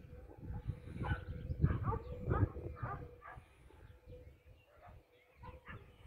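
Dog barking in a run of several short barks about a second in, then a few fainter ones, over a low rumbling noise.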